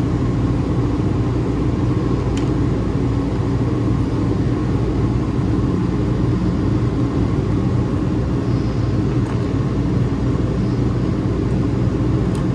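A steady low mechanical rumble, with a couple of faint clicks.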